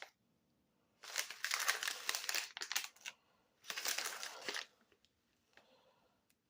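Plastic granola-bar wrapper pack crinkling as it is handled, in two bursts: about two seconds of crinkling, then about a second more a little later.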